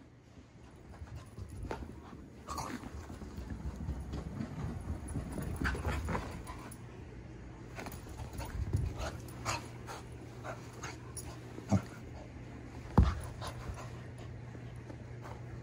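Corgi panting, with low thuds and scuffles of its movement on carpet in the first half. Two sharp knocks come in the second half, the second one the loudest.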